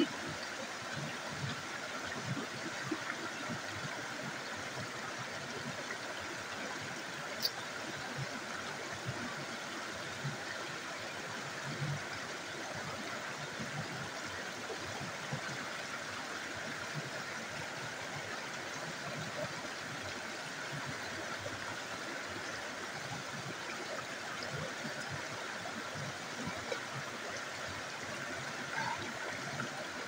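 Steady rush of a small river cascade pouring over rocks.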